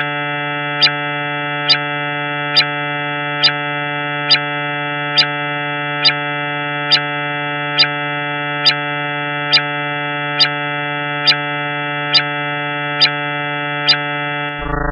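Steady electronic drone of many stacked tones, with a sharp tick repeating evenly a little more often than once a second, presented as a sound of one of Jupiter's moons. The drone and ticks stop together just before the end, when a different, lower hum takes over.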